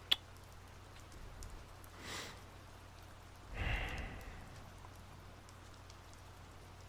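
A man's breathing close to the microphone over faint steady rain: a sharp click at the very start, a soft breath about two seconds in, and a longer sigh about three and a half seconds in.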